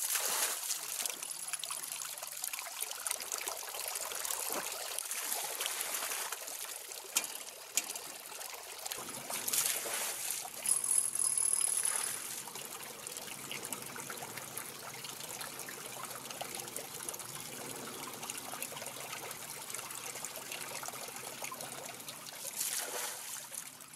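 Water from a wrought-iron fountain splashing and trickling into its shallow basin, a little louder for a few seconds near the middle.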